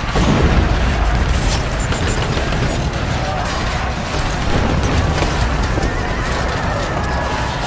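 Battle sound effects: a dense, steady rumble of war noise with shouting voices, booms and scattered sharp bangs of gunfire.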